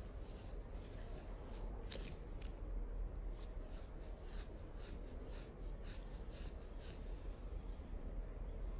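A string of short, soft scratchy sounds, a few a second and irregular, from a wombat being handled close up, over a low steady hum.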